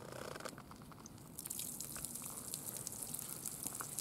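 Cooling water draining from the brass drain cock of an Akitu stationary oil engine's water jacket, splashing and dripping onto gravel. The stream starts about a second and a half in and then runs steadily, with many small splatters.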